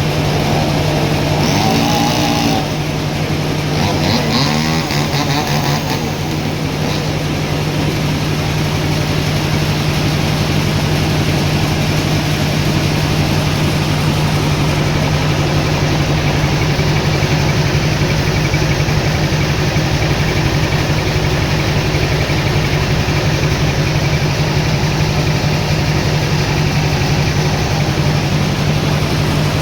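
Sawmill machinery running with a steady, loud engine drone. Two short pitched sounds, like calls or a squeal, rise above it in the first six seconds.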